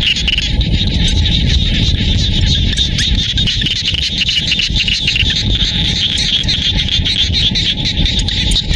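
A dense chorus of frogs calling from flooded rice paddies, a steady shrill pulsing with no pauses. A low rumble of wind on the microphone runs underneath.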